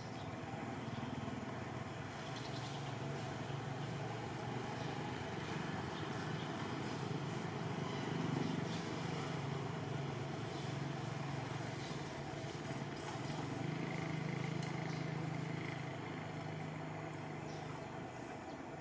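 An engine running steadily at a low pitch that wavers slightly, with scattered faint clicks and ticks over it.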